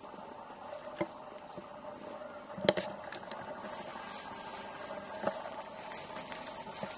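Plastic bag and plastic gloves crinkling as cornstarch is shaken out of the bag into a plastic bowl, with a few sharp clicks, the loudest a little under three seconds in, over a steady faint hiss.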